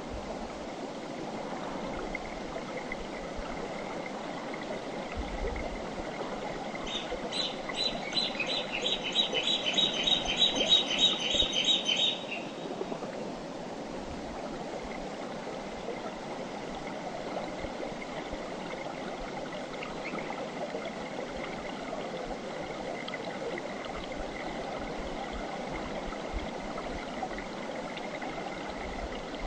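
Clear mountain river running steadily over rocks. About seven seconds in, a rapid series of high chirping calls, roughly three or four a second, sounds for about five seconds.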